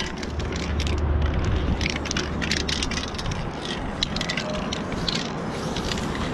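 Aerosol spray-paint cans: short hissing sprays mixed with clattering and rattling as the cans are handled, over a low rumble in the first couple of seconds.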